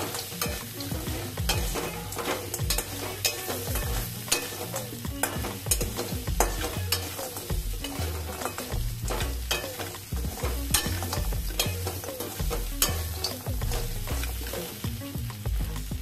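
A steel spatula stirs and tosses fried idli pieces around a stainless steel kadai, with frequent clinks and scrapes against the pan, over the sizzle of the spiced curd tempering frying on the heat.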